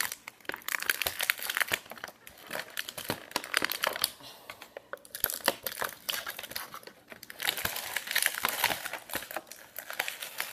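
Clear plastic wrapping crinkling and tearing as it is handled and pulled open by hand, a dense run of crackles that eases off briefly about halfway through.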